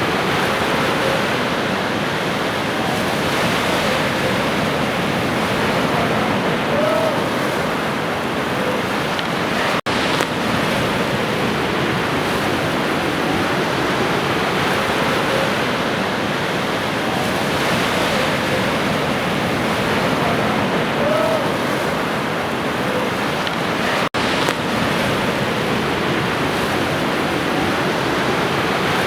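Ocean surf washing steadily on a shore in a continuous rushing noise, briefly cutting out for an instant twice, about ten and twenty-four seconds in.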